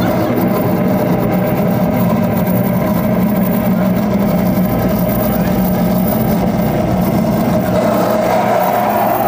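Loud, dense noise-music drone played live: a steady, unbroken wall of sound with held low and mid tones.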